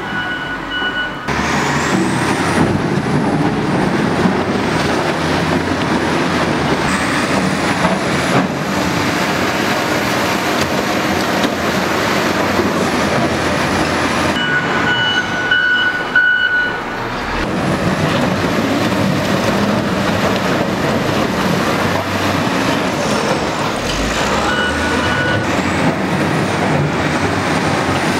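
Diesel wheel loader running hard as it works demolition rubble, a dense steady engine noise with a high whine that rises and falls. A steady high tone sounds briefly twice, about halfway through and near the end.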